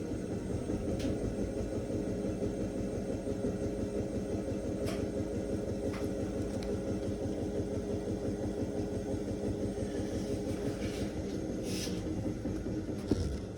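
Bauknecht front-loading washing machine on its 1400 rpm spin cycle: a steady, loud mechanical hum with a low rumble and a few light ticks, and one thump near the end.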